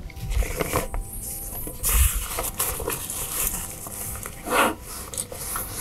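Nylon backpack fabric rustling and crinkling as hands rummage inside the pack, with a couple of louder swishes as the pack is pulled and shifted.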